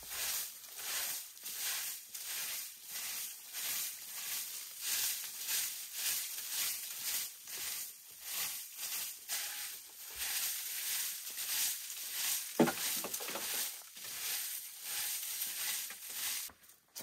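Rhythmic scraping strokes, about two a second, from hand work on a rough surface, with one sharp knock about three-quarters of the way through; the strokes stop just before the end.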